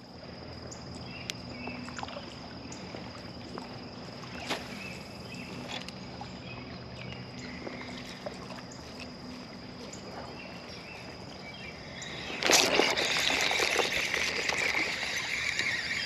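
Moving river water, a steady low wash with a thin steady high tone and a few faint clicks over it. About twelve seconds in, much louder water sloshing starts and keeps on.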